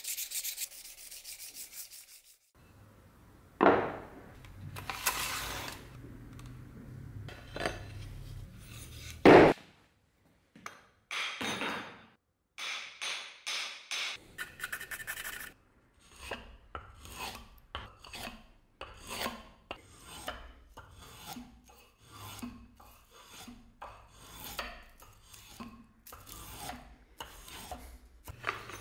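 Hand file rasping across a steel axe head in quick strokes, then a long run of short scraping strokes, about one to two a second, with a couple of sharp knocks in between.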